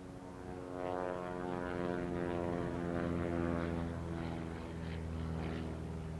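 A propeller airplane's engine passing by off-camera, swelling from about a second in and easing off near the end, its pitch drifting slightly downward as it goes.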